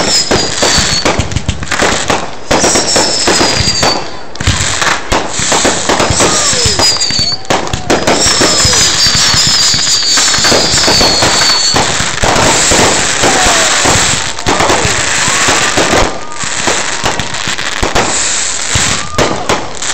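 Fireworks display going off: a dense run of cracks, pops and bangs, with several high falling whistles among them.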